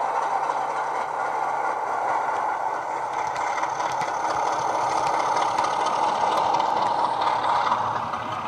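Heljan Class 33 model locomotive's LokSound DCC sound decoder playing a Coastal sound file of a Class 33's Sulzer diesel engine running under power, heard through a small 27 mm bass-enhanced speaker, with light clicking from about three seconds in. The sound drops in level near the end as the locomotive moves away.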